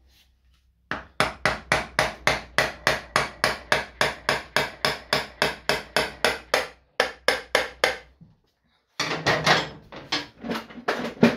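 Hammer tapping on a Piaggio Sfera NSL scooter's variomatic (CVT) cover to free it, in a steady run of sharp taps about four a second. After a short pause, a quicker, irregular flurry of taps comes near the end. The cover is stuck fast, seized from the scooter standing unused.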